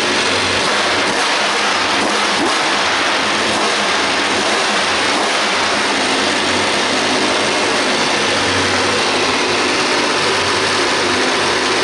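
Alfa Romeo 155 DTM racing V6, breathing through open intake trumpets, running steadily at a constant engine speed.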